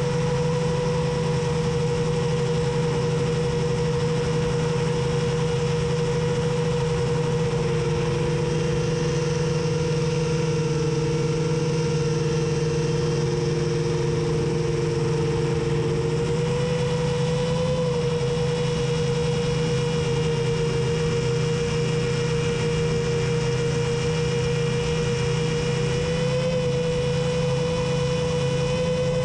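Electric motors and 7-inch props of a TBS G2 long-range FPV quadcopter cruising, heard from the onboard camera: a steady hum of several close tones whose pitch shifts slightly a few times as the throttle changes.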